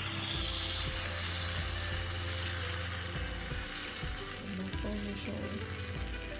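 Waffle batter sizzling and hissing on a hot waffle iron, the hiss dropping away about four seconds in. Background music plays underneath.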